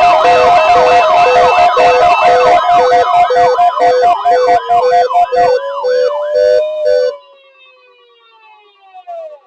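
Several sirens and pulsing alarm tones sounding together, with fast repeating up-and-down yelps. Most of it cuts off suddenly about seven seconds in, leaving one siren tone that slides down in pitch and fades near the end.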